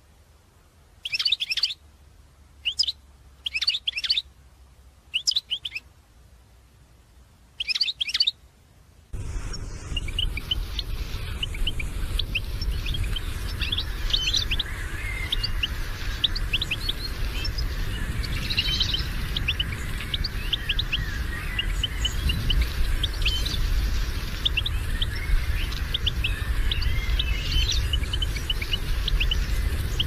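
European goldfinches calling: a few separate short bursts of twittering chirps, then about nine seconds in a dense, continuous twittering of many birds begins over a steady low rumble and hiss.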